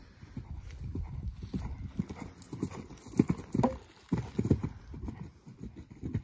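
Hoofbeats of a Trakehner gelding cantering on grass: a steady run of dull thuds. The strikes are loudest at take-off, stop briefly while the horse is in the air over a small jump about four seconds in, then pick up again with the landing.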